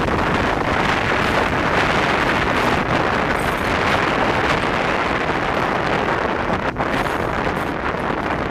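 Steady wind buffeting the microphone on the outside walkway of a moving locomotive, with the train's running noise underneath.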